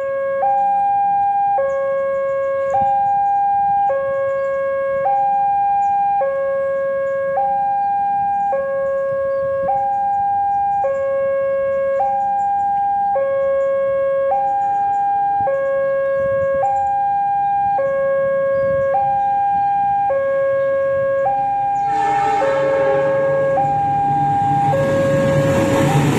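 Two-tone electronic railway warning alarm, a higher and a lower tone taking turns about once a second, steady and loud. About 22 seconds in, a diesel locomotive and its passenger coaches arrive, and their running noise grows loud over the alarm.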